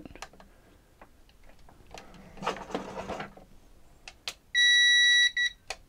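W Box 625VA UPS's internal buzzer sounding one steady high-pitched beep of about three-quarters of a second, followed by a couple of short blips, as the unit powers up after its drained battery was replaced. Before it there is a soft rustle of hands on the plastic case and a click of the power button.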